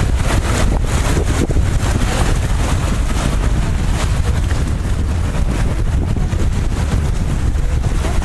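Wind buffeting the microphone: a steady low rumble with rapid, gusty flutter.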